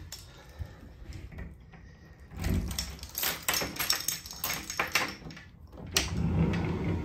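A bunch of keys rattling and clicking in a door lock as it is turned, then a sharp click about six seconds in as the boat's glass sliding cabin door is unlatched and slid open.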